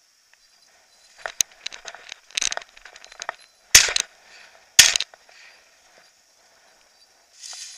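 Two shotgun shots about a second apart, fired at flushed game. Just before them comes a short flurry of sharp clicks and scuffs.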